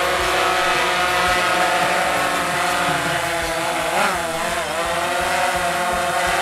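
Quadcopter camera drone's propellers and motors whining steadily as it hovers low and descends to land. The pitch dips briefly about four seconds in, then picks back up.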